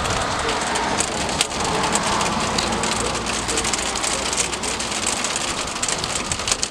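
Steady rain falling, a constant hiss of rain with many small drop ticks.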